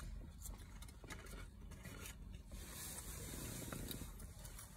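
Faint rustling of jacket sleeves and light scrapes and clicks of a fork in a plastic takeout tray, over a low steady rumble inside a car.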